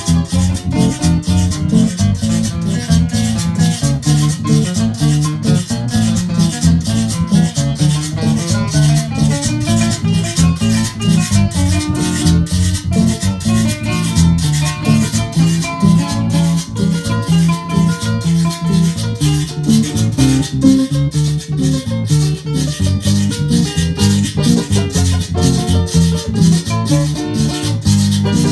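Live Latin guaracha-style instrumental jam: a nylon-string acoustic guitar picking melody lines over an electric guitar, with a metal cylinder shaker keeping a steady beat of about four shakes a second.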